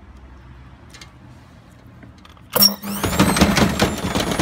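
A hotwired washing machine universal motor, run directly off the mains, starts about two and a half seconds in with a sudden loud bang. It spins up with a whine that climbs and levels off, under a fast, loud, rattling clatter.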